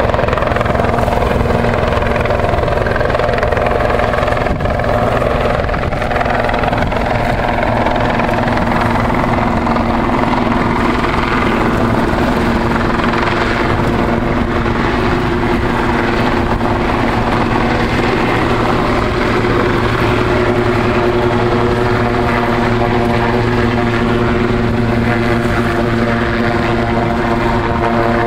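Helicopter running steadily overhead, a loud even drone of rotor and turbine with several steady tones.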